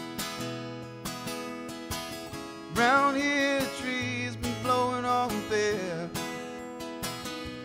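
Country-style song on acoustic guitar, strummed, with a voice singing two long, wavering notes.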